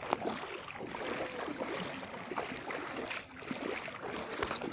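Floodwater sloshing and splashing around wading legs, over a steady rushing hiss.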